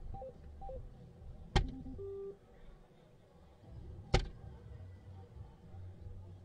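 Two soft-tip darts strike an electronic dartboard, each hit a sharp click, about two and a half seconds apart. The board sounds short electronic beeps as it registers the throws, twice near the start and again just after the first hit.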